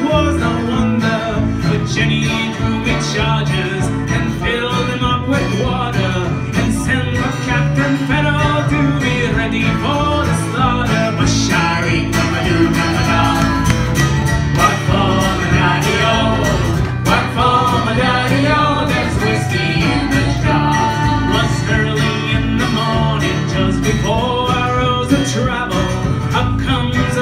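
Live bluegrass band playing an upbeat tune, with banjo and acoustic guitar driving a steady rhythm alongside other string instruments.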